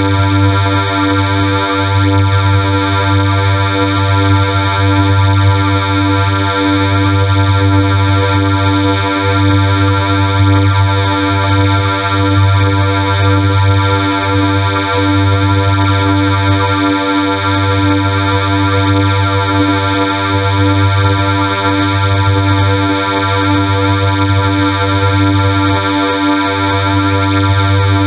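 A harsh synthesized sound effect: a loud, steady buzzing drone made of many stacked tones, held without change, with a slight pulsing in its low end.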